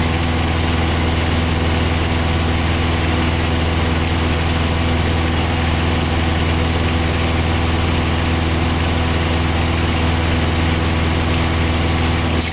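Engine of a self-loading concrete mixer running steadily at a constant speed, a loud even drone with a strong low hum.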